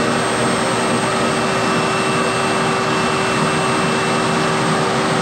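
Electric power tool motor running steadily at full speed, with a constant whine over a rushing hiss, typical of a sander working with its dust extraction.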